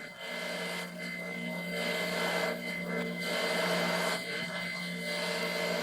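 Irregular scraping and rubbing in the gap between vending machines during an attempt to catch a gecko, over a steady electrical hum with a thin high whine from the machines.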